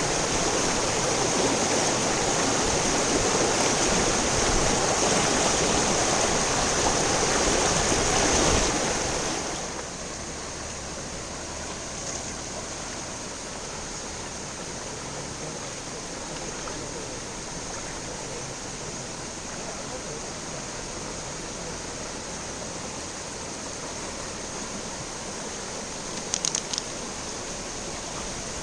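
Steady rushing of a waterfall, heard as an even noise with no pitch. About nine seconds in it drops sharply in level and carries on softer, and a few brief clicks come near the end.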